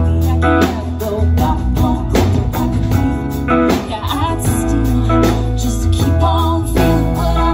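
Live band playing: electric guitar, electric bass, drum kit and keyboard, with a woman singing.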